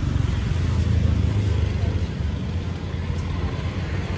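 A motor vehicle's engine running low and steady, loudest in the first couple of seconds, over general street noise.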